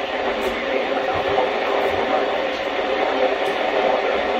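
Steady hissing radio noise, with a voice faintly buried in it.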